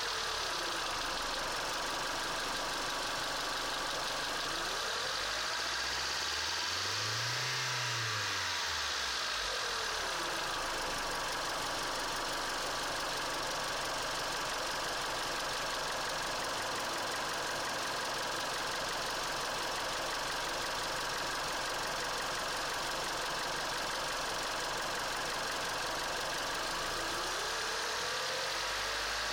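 Car engine running with a knock and rattle, revved up and back down once a few seconds in and again near the end. The knock is being tracked down by disconnecting spark plugs one at a time.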